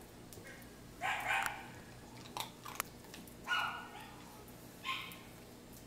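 A dog barking in short, separate barks, three or four times over a few seconds, with a few light sharp clicks between them.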